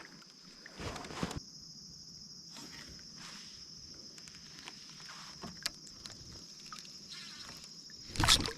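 Steady high-pitched insect chorus, with a few soft knocks and swishes; the loudest swish comes near the end.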